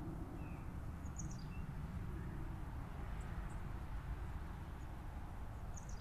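Faint, brief high-pitched bird chirps in three short clusters, about a second in, around the middle and near the end, over a steady low rumble.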